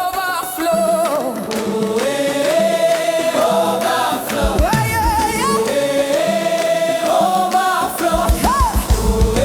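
African gospel praise music with long held sung notes and no clear words. A low drum and bass beat comes back in about eight seconds in.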